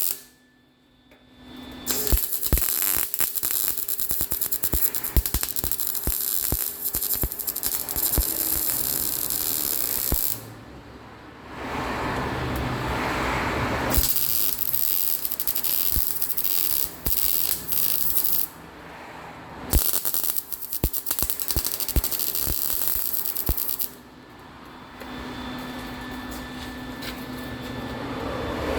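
Welder crackling and spitting as exhaust pipe and hangers are welded in. The welding comes in four runs of several seconds each, with short pauses between them.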